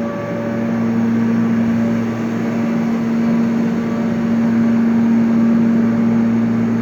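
Air compressor running with a steady low hum.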